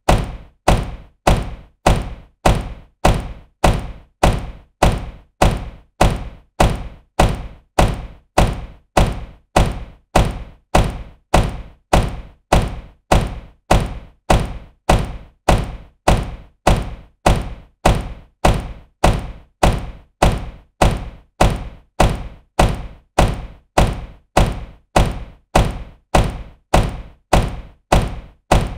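A car door shutting with a solid thunk, repeated over and over at an even, quick pace, each slam starting sharply and dying away fast: a single door-close sound looped.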